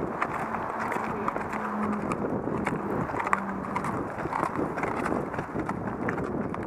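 Horses' hooves walking on a gravel path: an uneven run of crunching clip-clop steps.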